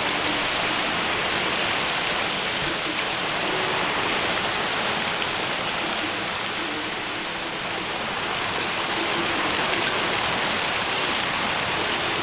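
Heavy rain falling steadily: an even, dense hiss that neither builds nor breaks.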